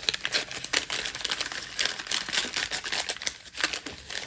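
Paper and plastic packaging being handled and unwrapped by hand: irregular crinkling and rustling with small sharp crackles.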